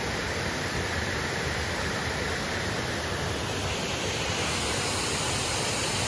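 Steady rush of water from a small waterfall cascading over rocks into a river pool.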